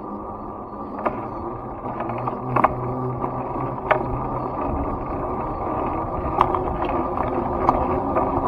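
Muffled rumble and rattle of riding along a concrete sidewalk, with a scattering of sharp clicks and knocks as the ride goes over the pavement.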